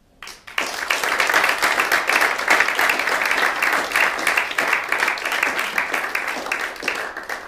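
Audience applauding at the close of a lecture: dense clapping that swells up about half a second in, holds steady, and dies away near the end.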